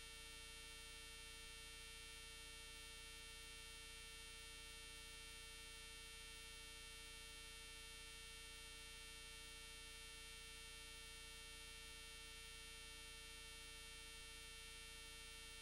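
Near silence: a faint, unchanging electrical hum and hiss made of several steady tones, with no sound from the animals.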